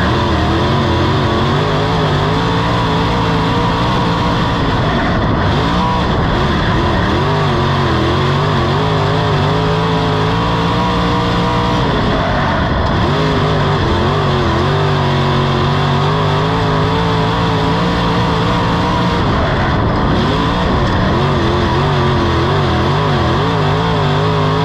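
Dirt modified race car's V8 engine running hard, heard from inside the cockpit. Its pitch dips and climbs back several times as the driver lifts for the tight corners of a short oval and gets back on the throttle down the straights.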